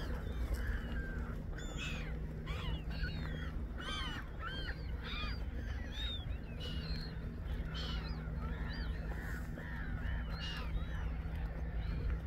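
A large flock of waterbirds on open water, many calling over one another: short, harsh, arching calls overlapping continuously, with a steady low hum underneath.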